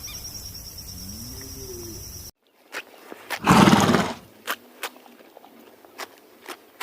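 Horse sounds: over steady background noise a faint low call rises and falls, then after a cut a loud breathy blow or snort about three and a half seconds in, followed by a few sharp knocks.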